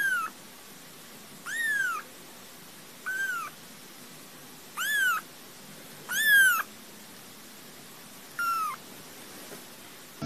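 Very young kitten mewing: six short, high-pitched mews, each rising then falling in pitch, a second or two apart.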